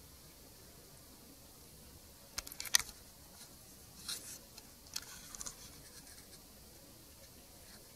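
Domestic cat licking the fur of its belly while grooming: short, scratchy rasps of the tongue in a few brief clusters, starting about two and a half seconds in, then twice more, against a quiet room.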